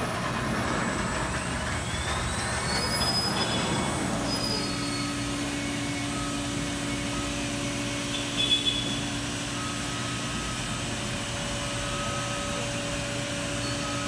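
Industrial machine in a plastics trimming cell, most likely a CNC router spindle: its whine rises in pitch over the first few seconds, then settles into a steady hum with short higher beeping tones that come and go. A brief louder burst comes a little past halfway.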